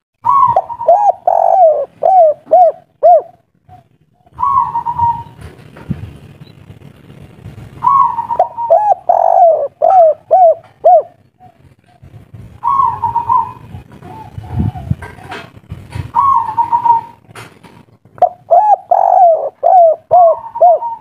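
Spotted dove (tekukur) singing its kuk-3 song: repeated cooing phrases a few seconds apart, each a quick run of coos, some cut short after the opening note. A low background rumble runs under the middle phrases.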